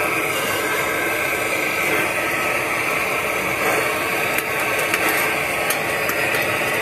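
Handheld gas torch burning with a steady hiss as it heats a copper pipe solder joint, with a few faint clicks in the later part.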